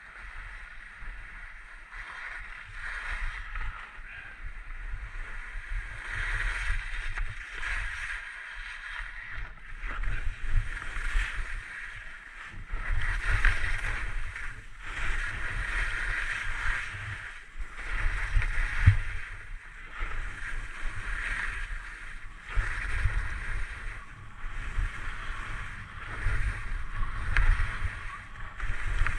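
Skis scraping and hissing across snow through a run of turns, the scrape swelling and fading every second or two, with wind buffeting the microphone.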